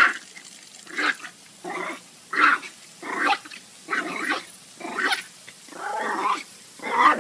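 A dog giving a series of short vocal calls, about one every second, each one bending in pitch.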